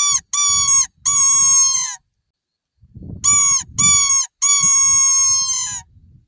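A predator call for foxes squealing in two runs of three high, drawn-out cries with a pause between them, each cry dipping in pitch at its end and the last one the longest. This is a lure call that brings a fox in toward the shooter.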